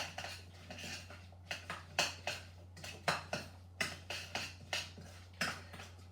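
A cooking utensil stirring seasoning in a pan, knocking and scraping against it in sharp, irregular clinks about once or twice a second.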